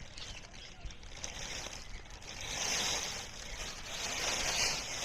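Hot frying oil sizzling in a pan, as a hiss that grows louder about two and a half seconds in.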